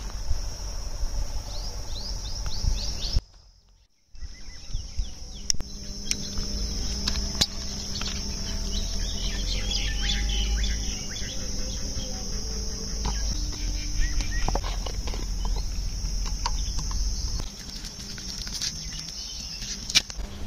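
Outdoor ambience of a steady, high insect drone with scattered bird chirps, a low rumble underneath and occasional sharp clicks. A brief gap about three seconds in.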